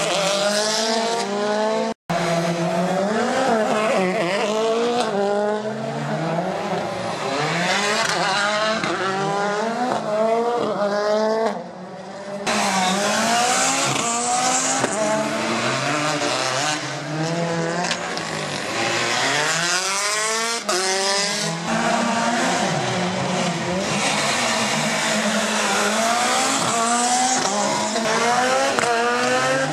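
Rally cars driven hard on a tarmac circuit stage, engines revving up and down through rapid gear changes and lifts, with tyre squeal, over several passes. There are abrupt breaks about 2 s in and just before the middle.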